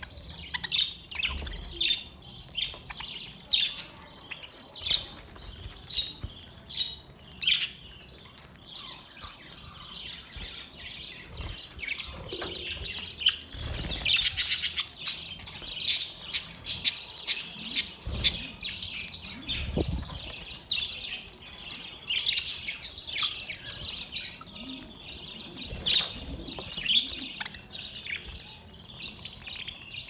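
A flock of budgerigars chirping and chattering, many short high calls overlapping; the chatter grows denser and more continuous about halfway through.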